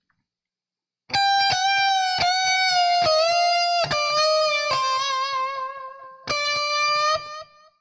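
Electric guitar playing a descending single-note C minor blues lick, starting about a second in. The picked notes are bent and shaken with vibrato, and it ends on a held note that rings out.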